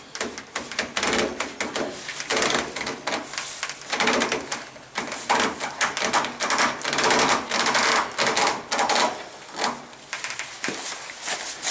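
Rubber flexible pipe coupling and its steel band clamp being handled and worked onto a PVC pipe close to the microphone: a dense, irregular clatter of clicks and rubbing, easing off briefly near the end.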